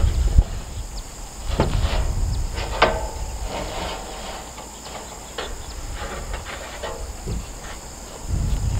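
About five sharp knocks and taps at irregular intervals from handling metal roofing panels, the loudest about three seconds in. Underneath is a steady high drone of insects.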